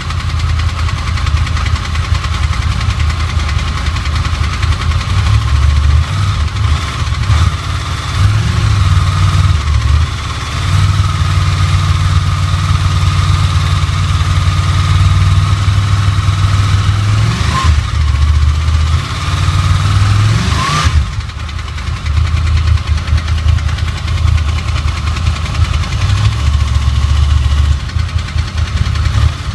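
Honda VFR800 V4 engine idling with an uneven, pulsing low note and a steady high whine above it, the strange noise the owner hears while the engine is below 65 °C. A brief rising chirp and a short dip in loudness come about two-thirds of the way through.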